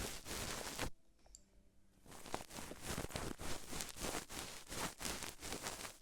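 Close-miked ASMR trigger sound: a dense run of small clicks and crackling rustle. It stops just under a second in and starts again about two seconds in.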